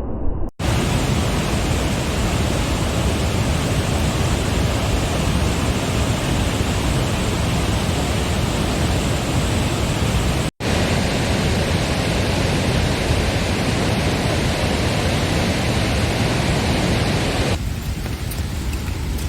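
Barron Falls pouring: a loud, steady rush of falling water, broken by two brief dropouts, and thinner and lighter near the end.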